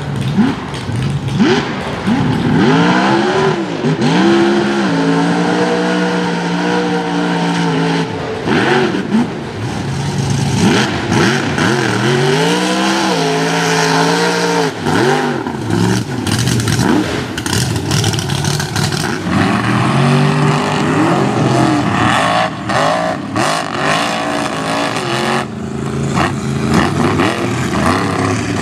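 Supercharged mud truck V8 revving hard, its pitch rising and falling again and again and held at high revs for a couple of seconds at a time.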